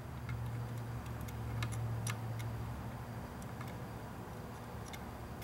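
Soldering a stepper motor's pins onto an instrument cluster circuit board: faint, irregular small ticks and clicks, over a steady low hum.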